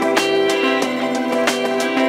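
Background music: plucked guitar notes over sustained tones.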